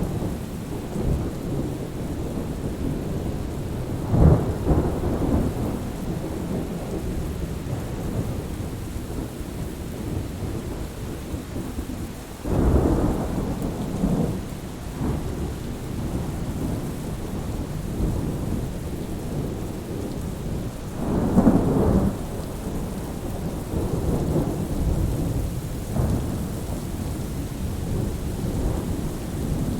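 Thunderstorm: steady rain with rolling thunder rumbling over it, swelling in several low peals, the loudest about 4, 12 and 21 seconds in.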